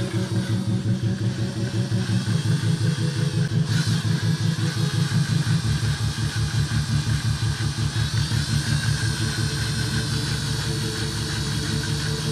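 Plastic 3D-printed model engine turned by a cordless drill: a steady motor drone with a regular pulsing beat of about four to five a second from the turning crank and connecting rod.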